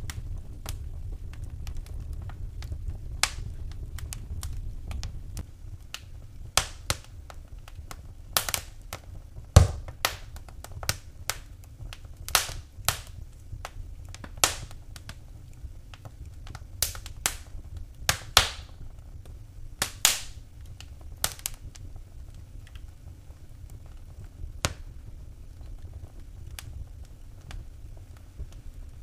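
Wood fire burning in a fireplace, crackling and popping at irregular intervals over a low rumble, with a few sharper loud pops.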